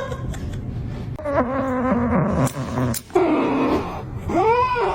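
A cat meowing: three drawn-out calls, the first sliding down in pitch, the last rising then falling.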